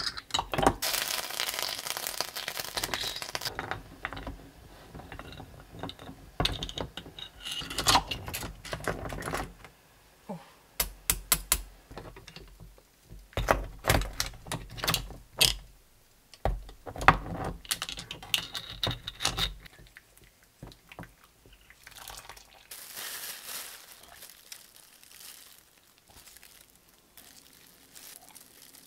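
Hard sea-snail shells and steel tongs clacking against a pot of boiling water in a string of sharp, irregular knocks, with a hiss of bubbling water at the start.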